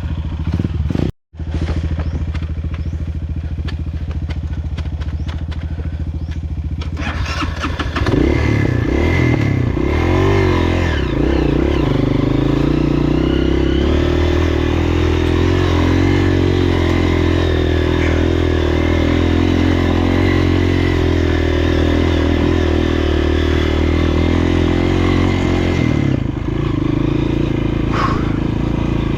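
Honda CRF230F's single-cylinder four-stroke engine running as the trail bike is ridden. About seven seconds in it gets louder, its pitch rising and falling for a few seconds as it is revved, then holds steady at higher revs before easing off near the end; the sound cuts out completely for a moment about a second in.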